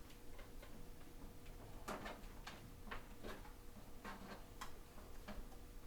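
Faint, irregular light clicks and taps, about a dozen, over a quiet steady hum.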